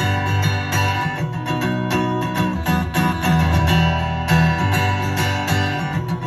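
Acoustic guitar strumming chords in a steady rhythm, an instrumental passage between sung lines.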